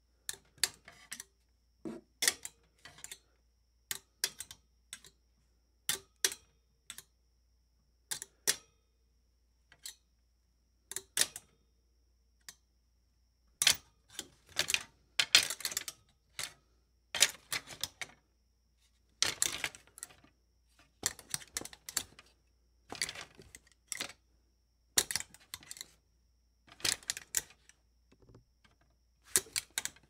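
A clothes hanger clicking and clattering against metal in short, irregular clusters of sharp knocks, with brief silent gaps between them.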